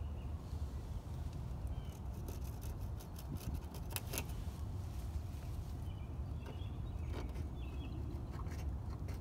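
Outdoor ambience: a steady low rumble with a few faint bird chirps scattered through, and a sharp click about four seconds in.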